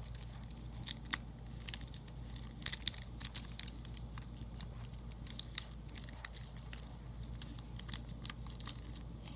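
Clear plastic card-sleeve pages of a ring binder crinkling and crackling as they are handled and turned, in a run of many short, irregular crackles.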